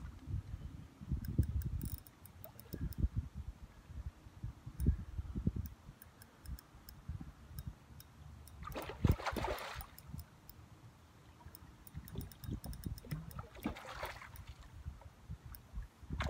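Wind gusting across the microphone in low rumbles, with two short rushing bursts of noise, one about nine seconds in and one about fourteen seconds in.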